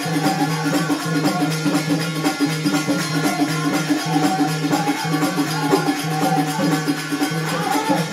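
Live instrumental folk devotional music: a hand drum keeps a steady beat under quick, even cymbal ticks, with no singing.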